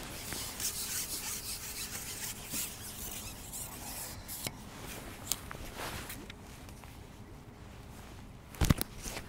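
Rubbing and scraping from the carbon fishing pole being handled and lifted, with scattered light clicks. One sharp knock comes near the end.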